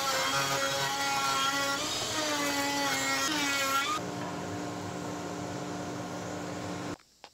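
Table-mounted router spinning an Amana multi-rabbet bit through a walnut board, its pitch dipping and recovering as it takes the cut. About four seconds in, the cut ends and the router runs on unloaded, steadier and quieter, until the sound stops abruptly near the end.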